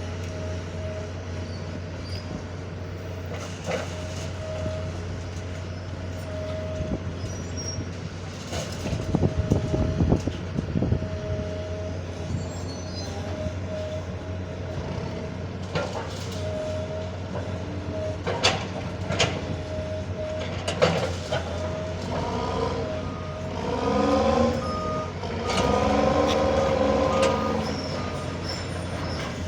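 A backhoe's diesel engine running steadily during demolition work. A burst of loud crashes comes about nine to eleven seconds in, then a few sharp knocks. A wavering squeal of metal grinding follows near the end.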